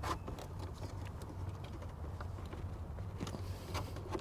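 A few faint plastic clicks and taps as a plastic trim tool pries at the clip tabs of a Ford F-150's instrument cluster bezel, over a low steady hum.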